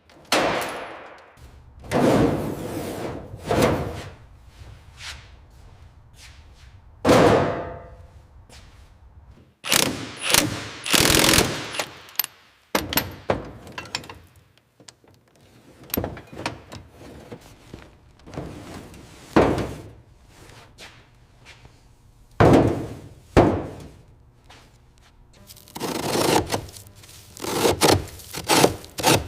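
Workshop sounds from car restoration work: an irregular series of loud knocks and short scraping, rasping bursts, each lasting under a second or so.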